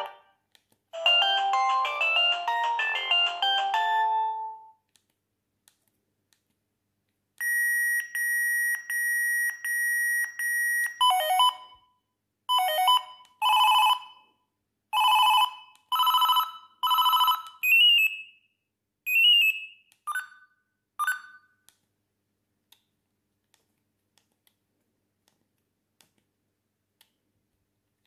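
Siemens A52 mobile phone playing its built-in 'traditional' ringtones through its small loudspeaker: a short electronic melody, then a run of steady high beeps, then a series of separate ring tones about once a second that get shorter. Faint key clicks follow near the end.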